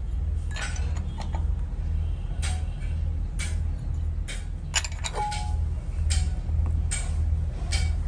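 Light metal clinks and taps, roughly one a second, from small metal patterns and tools being handled on sand-casting moulds; one clink a little past the middle rings briefly. A steady low drone runs underneath.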